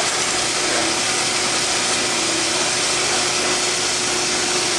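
Steady, unbroken roar of a forge's air blower running, with a faint constant hum in it.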